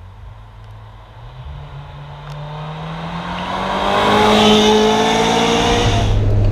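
Ferrari V8 engine note rising gradually in pitch and growing much louder over about three seconds, then holding loud and steady.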